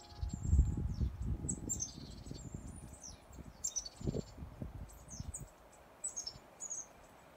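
Small birds chirping in the treetops, many short high chirps that fall in pitch. Low gusts of wind buffet the microphone through the first two seconds and again about four seconds in.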